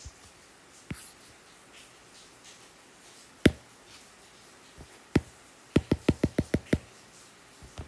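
Stylus tapping on an iPad's glass screen while painting: a few single sharp taps, then a quick run of about eight taps in a second.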